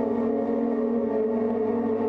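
Live ambient drone music from guitar and electronics: a dense chord of sustained tones held steady, with a slight shimmer in the upper notes.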